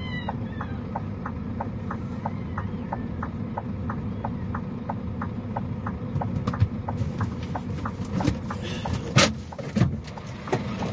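Burning wreck of an overturned coal truck: a steady low rumble with a regular ticking about twice a second. From about six seconds in come sharp cracks and pops, the loudest a little after nine seconds.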